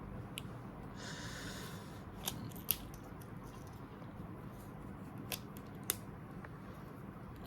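Protective plastic film being peeled off a small keychain by hand: a brief rustling hiss about a second in, then a few sharp clicks and ticks as the keychain and film are handled.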